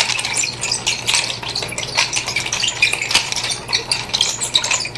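Nunchaku twirled in a continuous reverse figure-eight, giving a rapid, irregular run of light clicks and clinks, over a steady low hum.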